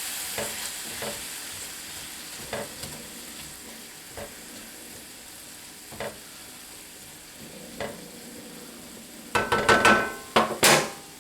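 Sausage, onion and garlic sizzling in a cast iron skillet as they are stirred, with a light tick from the utensil every second or two. Near the end comes a short run of louder clicks and clatter.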